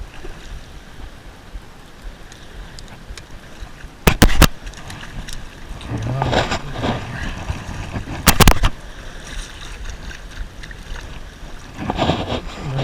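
Water splashing and lapping, with wind noise on the microphone. Two very loud short bursts of noise come about four and eight seconds in.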